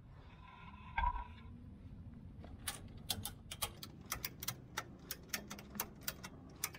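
A knock about a second in, then a ratchet strap being cranked tight: a quick run of sharp ratchet clicks, several a second, from about three seconds in.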